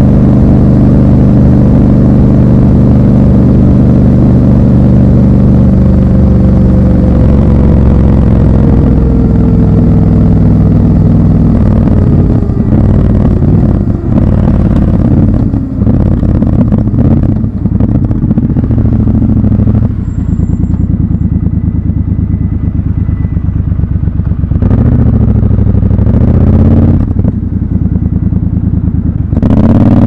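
Triumph Scrambler 1200 XC's 1200 cc parallel-twin engine, heard raw from the rider's seat, running at cruising speed with wind hiss, then easing off with its pitch falling as the bike slows. It ticks over low, with a few clicks, and revs up again as it pulls away near the end.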